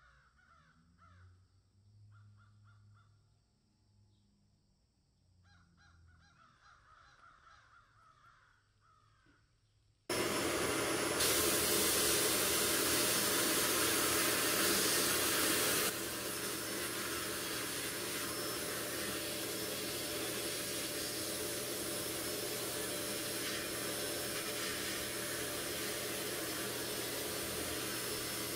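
A sandblasting gun in a blast cabinet, blasting rust off the stamped steel frame half of an old Daisy airgun. It is a loud, steady hiss that starts suddenly about a third of the way in and drops a little in level a few seconds later. Before it, a few faint bird calls.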